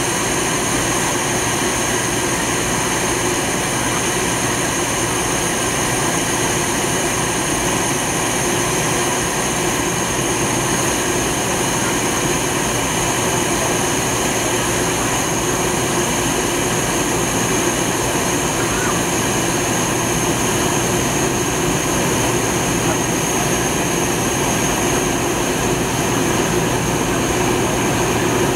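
Cabin noise inside a McDonnell Douglas DC-9-51 climbing after takeoff. A steady rush of airflow and engine noise comes from the rear-mounted Pratt & Whitney JT8D turbofans at climb power, with a steady high whine on top.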